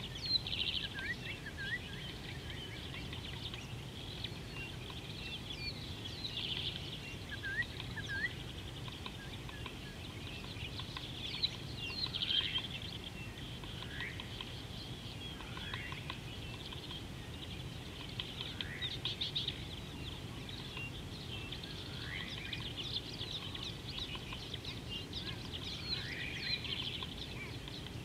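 A mixed chorus of wild birds chirping and calling, with repeated short downward-sliding calls, over a steady low background rumble.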